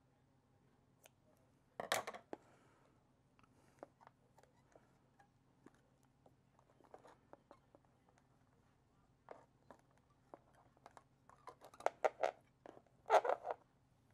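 A snip of scissors about two seconds in, then scattered clicks, taps and rustles of hands handling a small firework box and materials on a workbench, loudest in a cluster near the end, over a faint low hum.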